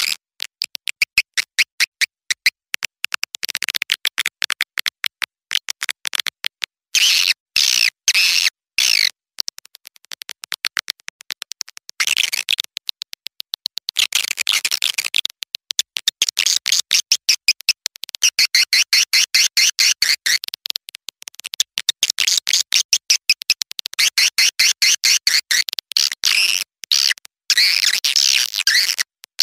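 Recorded swiftlet lure call: young swiftlets' rapid, high chirping trills repeated in dense bouts with short breaks. This is the call sound played to draw swiftlets into a nesting house.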